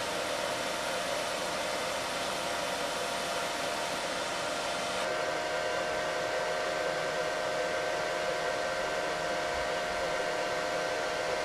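SanRex 200PW plasma welder running with its pilot arc lit: a steady hiss and whir from the machine's cooling and gas flow, with a faint held hum. The sound changes slightly about five seconds in.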